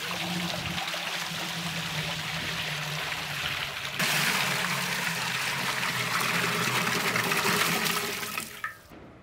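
Water poured in a steady stream from a copper water pot into a large metal cooking pot, splashing onto the water already in it as the pot is filled with water to boil for rice. The splashing grows louder about four seconds in and tails off shortly before the end.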